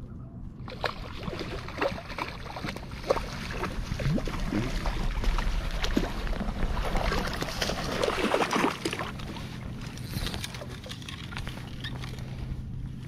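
A hooked pink salmon thrashing and splashing at the surface as it is played in close on a fly rod, with water sloshing around it; the splashing is heaviest in the middle.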